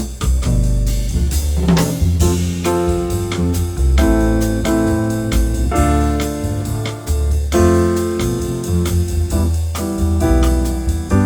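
Background music: a piano or electric keyboard melody over a bass line and light drums.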